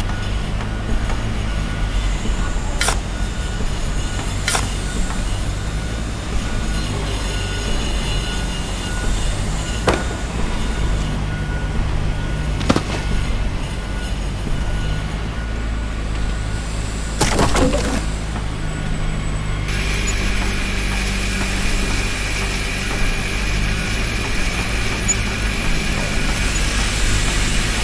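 A heavy engine running steadily with a low drone, broken by a few sharp knocks. The sound changes about two-thirds of the way in.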